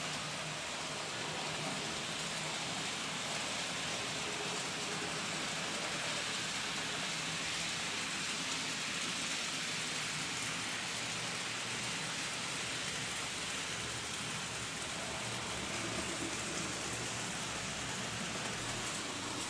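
Model trains running on a model railway layout: an even, steady rushing noise without distinct clicks or tones.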